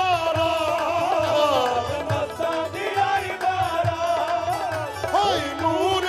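Qawwali: a lead singer holding long, ornamented notes with vibrato, backed by harmonium and steady hand-drum beats.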